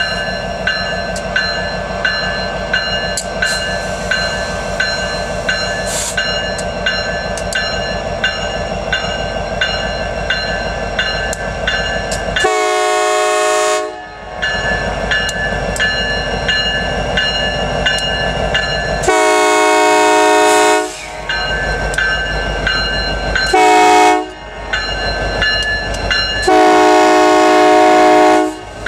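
Freight train led by an EMD SD70ACe diesel locomotive passing close by, its engines and wheels rumbling steadily. Its air horn sounds two long blasts, a short one, and a final long one: the standard grade-crossing signal.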